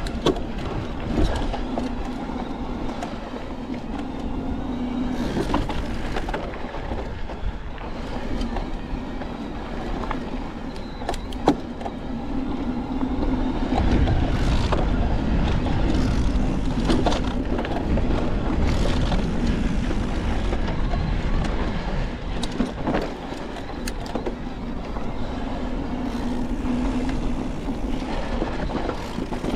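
Niner WFO e9 electric mountain bike rolling fast down a dirt singletrack: a steady rumble of tyres on dirt and wind, with the chain and frame rattling and sharp knocks as it runs over rocks.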